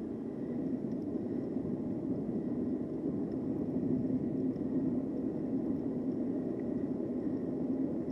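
Steady rush of wind and tyre noise from an electric bike riding along a paved street, with a faint steady high whine.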